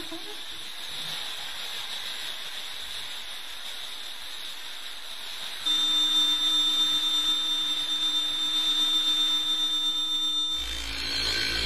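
Cartoon sound effect of a Crush Gear battle machine powered up: a steady hiss, then about halfway through a steady high electronic whine with a lower hum sets in abruptly. Near the end it gives way to a low rumble.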